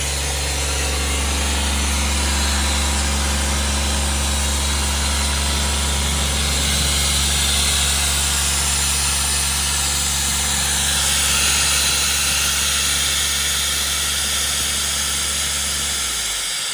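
Doosan 7/31E portable air compressor's three-cylinder Yanmar diesel engine running at a steady speed, with a steady hiss over the engine note. The engine hum cuts off near the end.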